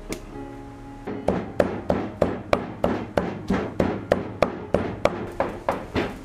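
Steel cleaver chopping raw pork on a thick round wooden chopping block, mincing it in quick, even strokes about three a second that start about a second in. Background music plays underneath.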